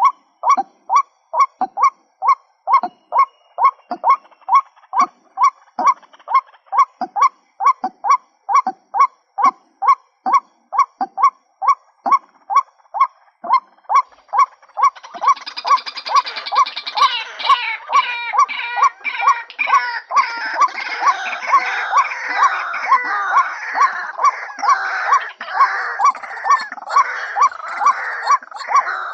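Female white-breasted waterhen giving a monotonous series of short 'kwak' calls, about two a second. About halfway in, a dense jumble of overlapping, harsher croaking calls joins over the steady series.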